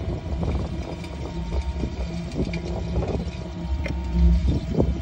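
Steady low rumble of a 25 kW waste-oil boiler's burner running, with a few light clicks as the controller's button is pressed to raise the set temperature.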